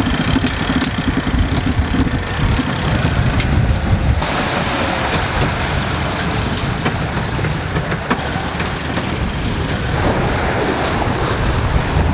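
Wind buffeting the microphone and sea water rushing past the hull of a sailing yacht under way in choppy seas, a steady low rumble and hiss, with a few light clicks in the first few seconds.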